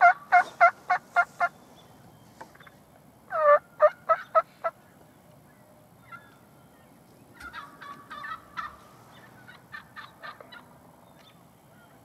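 Wild turkey gobbling: a tom's rapid, rattling gobble trails off in the first second and a half, and a second loud gobble comes at about three and a half seconds. Fainter turkey calls follow later on.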